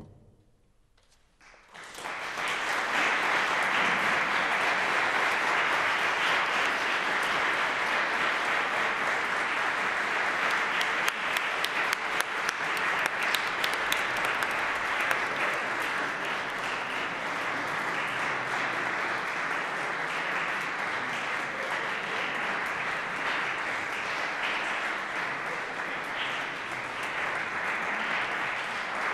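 Audience applauding, breaking out about two seconds in after a moment of near quiet and carrying on steadily.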